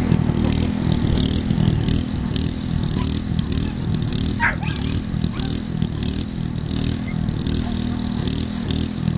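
A small engine runs steadily with an even drone, and a faint high hiss pulses about twice a second. There is one brief high chirp about four and a half seconds in.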